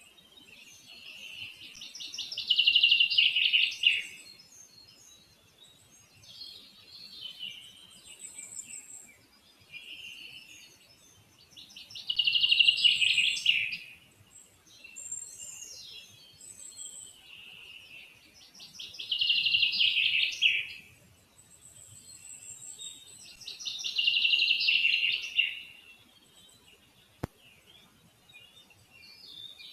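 Small songbird singing in the surrounding forest: four loud, fast-trilled song phrases about two seconds long, repeated every five to seven seconds, with quieter phrases between them.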